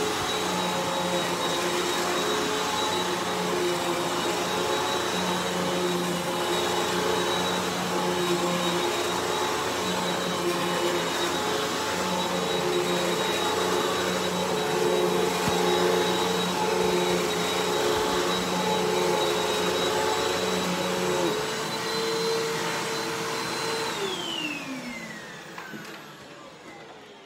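Hoover WindTunnel 3 Pro Pet upright vacuum running steadily while vacuuming carpet. About 24 seconds in it is switched off and the motor winds down with a falling whine.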